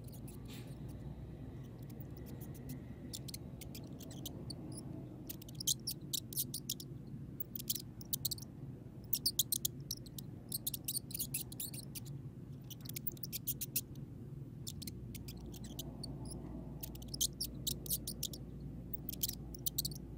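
Clusters of short, high squeaks and chirps from a video for cats playing through a smartphone's small speaker, over a steady low hum.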